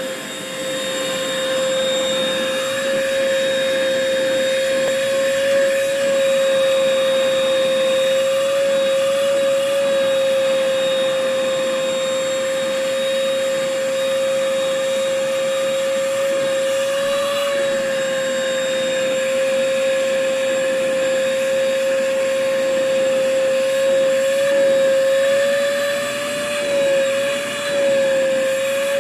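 Vacuum cleaner running steadily: a high motor whine over a rushing hiss, its pitch wavering slightly a few times, around the middle and again near the end.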